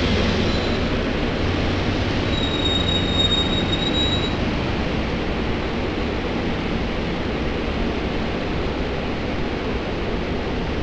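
SEPTA Silverliner IV electric commuter cars rolling slowly past the platform with a steady rumble. A brief high squeal rings out about two seconds in and lasts about two seconds.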